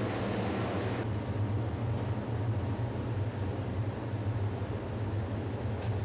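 Steady machinery hum with a hiss of running air or steam over it. The hiss thins out about a second in.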